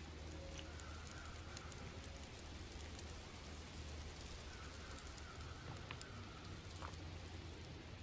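Faint forest ambience: a steady low rumble under an even hiss, with scattered light ticks and, now and then, a faint high note held for about a second.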